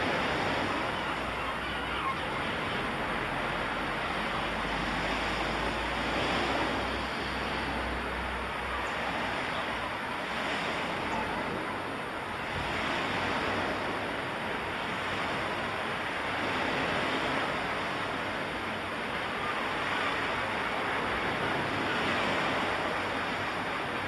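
Ocean surf: waves washing onto a shore in a steady hiss that swells and falls back every three or four seconds.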